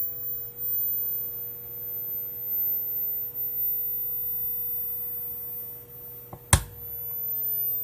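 Xilence XP480 ATX power supply whining steadily at a very high pitch, a thin squeal that the repairer puts down to the 5 V standby circuit straining and failing to start. A low hum runs beneath it, and a sharp click comes about six and a half seconds in.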